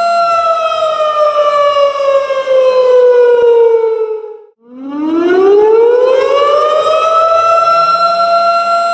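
Tornado warning siren wailing: its steady tone slides slowly down in pitch, cuts out for a moment about halfway through, then winds back up and holds steady again.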